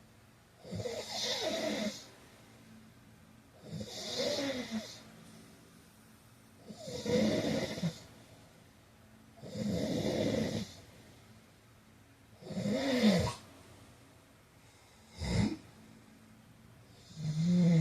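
A man snoring in a steady rhythm, about one snore every three seconds, with one much shorter snore about fifteen seconds in.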